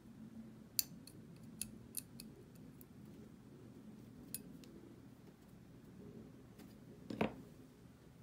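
Sharp little clicks of a steel pick against a small metal paintball regulator part as it is worked over by hand, a few scattered ticks, then a duller knock about seven seconds in.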